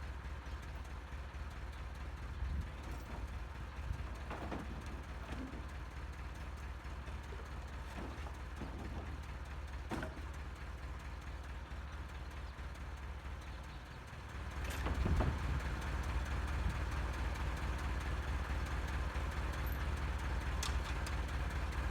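Forklift engine idling steadily, with a few short knocks. About two-thirds of the way through it gets louder and busier, as when the engine is revved to work the lift.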